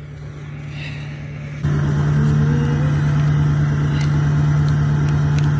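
Diesel pickup truck engine idling steadily close by, a low hum with an even, rapid pulse. About a second and a half in it suddenly gets louder.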